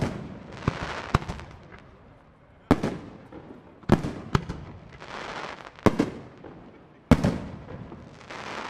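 Professional aerial firework shells bursting overhead: about seven sharp bangs at irregular intervals of one to two seconds. Each bang is followed by a hiss that fades over a second or two.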